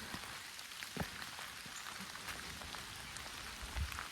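Steady rain falling on the forest, with scattered sharp ticks of individual drops and a soft low thud near the end.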